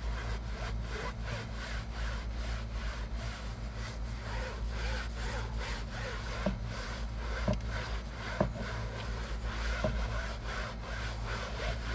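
Stiff brush scrubbing wet fabric car-seat upholstery by hand, in quick back-and-forth strokes at about three a second.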